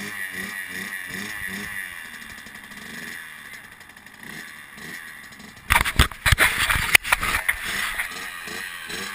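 85cc two-stroke dirt bike engine running at idle with a steady pulsing drone. Around six to seven and a half seconds in, a cluster of loud sudden bursts breaks over it.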